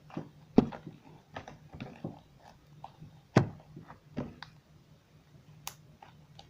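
Crunchy slime with beads mixed in being squeezed and kneaded by hand, giving irregular sticky pops and crackles, loudest about half a second in and again about three and a half seconds in, thinning out near the end.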